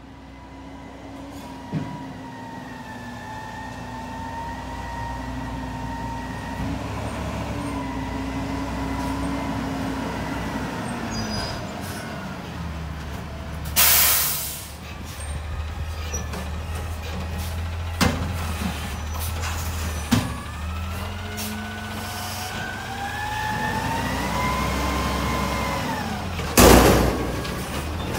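CNG Peterbilt 520 garbage truck driving up and working its McNeilus front-loader hydraulics: the engine runs under a whining hydraulic pump that shifts in pitch as the forks move. An air brake hisses loudly about halfway, and metal clunks follow. Near the end the hydraulic whine rises as the arms lift a container overhead, and another loud air hiss sounds.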